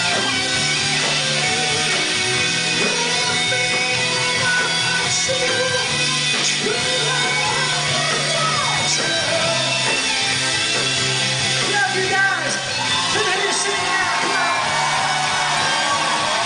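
Rock band playing loud and live, with the lead vocalist singing over electric guitar and drums, recorded from within the audience.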